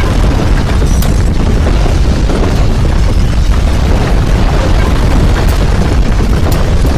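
Earthquake rumble sound effect: a loud, steady, deep rumble, with a few brief sharp clicks about a second in and near the end.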